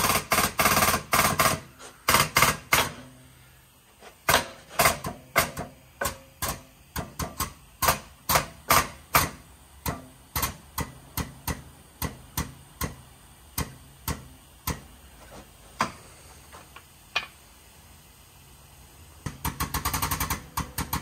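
Sharp metallic knocks and clicks from working the Suzuki Samurai transmission's gear shaft in a shop press, irregular at two or three a second. Near the end they turn into a fast, even ticking.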